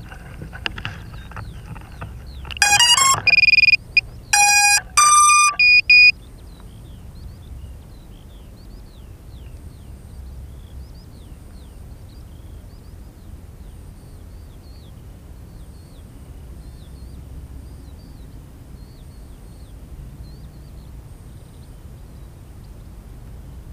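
A loud run of electronic beeps at changing pitches, some notes held, starting a few seconds in and lasting about three seconds. Otherwise only a faint low rumble with small high chirps.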